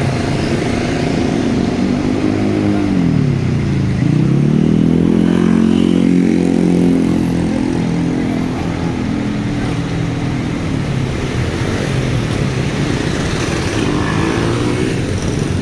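Bus engine pulling away. Its pitch drops at a gear change about three seconds in, then climbs again and holds for several seconds before easing off.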